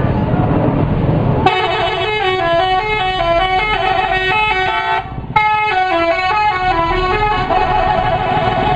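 A bus's telolet horn, a set of musical air horns, plays a melody of stepping notes. It starts abruptly about a second and a half in, over a low engine rumble, and breaks off briefly about five seconds in before playing on.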